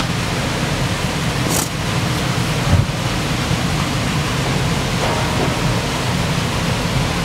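Steady rushing of a stream flowing through a new stony bed, with a single dull bump a little under three seconds in.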